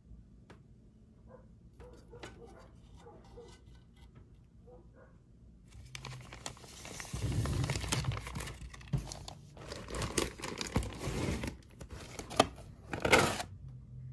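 Clear plastic bag crinkling and rustling as it is handled. It is faint with a few light ticks for the first half, then loud, dense crinkling from about halfway in until just before the end.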